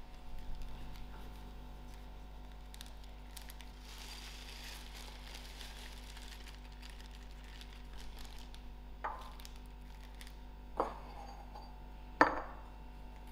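Quiet kitchen room tone with a steady hum and faint rustling, then three sharp clinks of kitchenware knocking on a counter near the end, the last the loudest.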